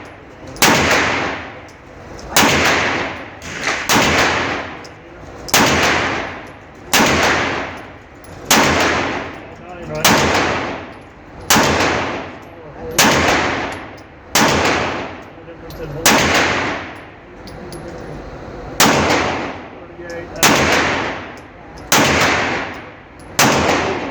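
Pistol fired slowly, one shot about every second and a half, some fifteen shots with a longer pause about two-thirds of the way through; each crack is followed by an echoing tail.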